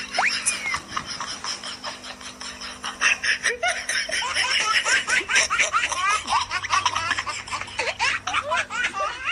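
High-pitched giggling laughter, many short rising and falling peals that grow louder and denser about three seconds in. Near the start there is a single tone that rises and then falls.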